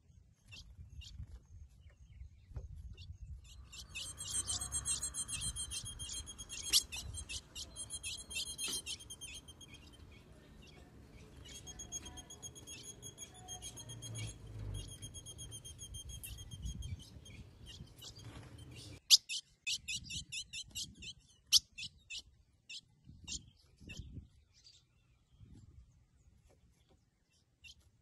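Female ultramarine grosbeak (azulão) giving long runs of short, high, thin chips in quick clusters, the solicitation calls of a female asking the male to mate.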